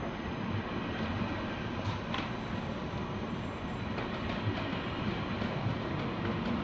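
KTX high-speed train rolling at low speed along the platform. Its wheels and running gear make a steady low rumble, with a few faint clicks.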